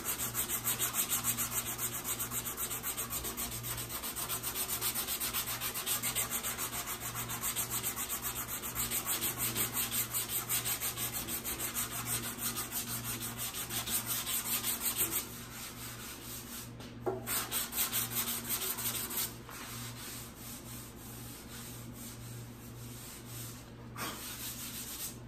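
Sandpaper on a hard hand sanding block rubbed in quick back-and-forth strokes over cured metal glaze putty on a primered motorcycle fuel tank, knocking down the high spots over a small dent so only the low stays filled. Steady sanding for about fifteen seconds, then it eases off, with a short spurt of strokes a couple of seconds later and lighter rubbing after.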